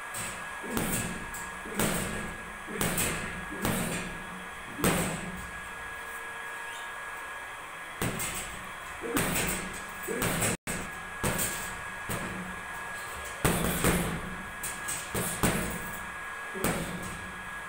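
Boxing gloves thudding into a Jonex heavy punching bag. At first single punches land about a second apart, then come quicker runs of several punches with pauses between.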